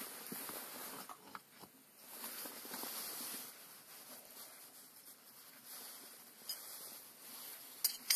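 Rustling and light scraping of hands handling a tractor transmission input shaft and its cast housing, with a few sharp clicks near the end, the loudest right at the end.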